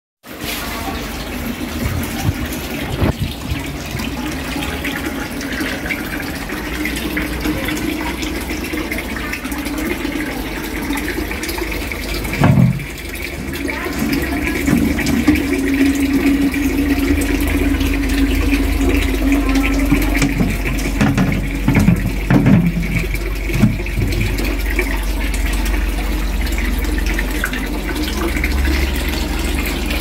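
Water pouring steadily from small pipe spouts and splashing into a backyard fish pond.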